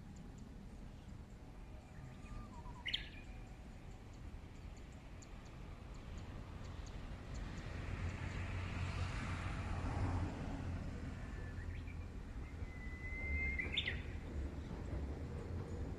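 Japanese bush warbler (uguisu) singing twice, each song a held whistle ending in a quick flourish. A low rumble grows underneath from about halfway through, as a train draws near.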